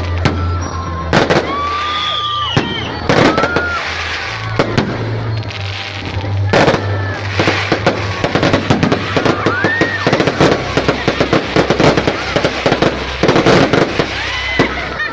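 Aerial fireworks going off in quick succession, a dense run of sharp bangs and crackling, with a few short whistles among them.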